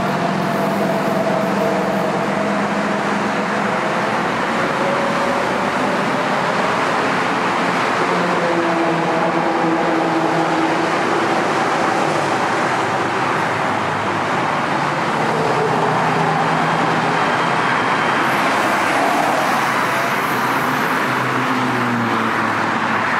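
Steady freeway traffic noise: a continuous wash of cars and trucks passing at speed, with faint wavering engine and tyre tones through it.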